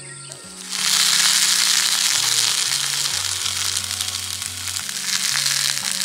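Food sizzling in a hot pan, a loud frying hiss with fine crackles that starts suddenly about a second in, over background music.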